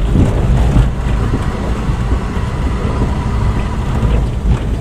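Car driving along, a steady low engine and road rumble heard from inside the cabin.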